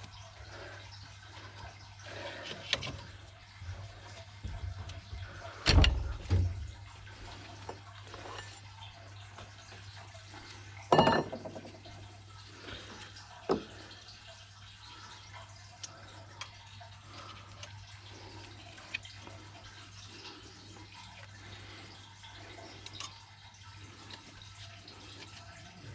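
Water trickling and dripping from a leak in domestic plumbing, with a few loud knocks and bumps, the loudest about six and eleven seconds in, over a steady low hum.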